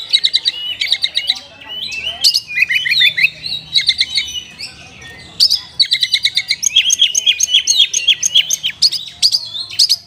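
Oriental magpie-robin (kacer) singing a fast, varied song of high whistled notes and trills. About halfway through it breaks into a rapid run of repeated sharp notes, roughly five or six a second.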